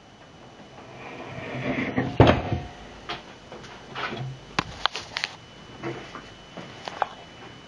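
Handling noises: a rustling swell ending in a loud knock about two seconds in, then a series of scattered clicks and light knocks.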